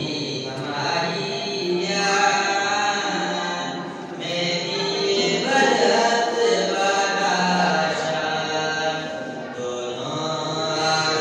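A teenage boy singing a naat, a devotional poem, unaccompanied into a handheld microphone, in long melodic phrases with short breaks between them.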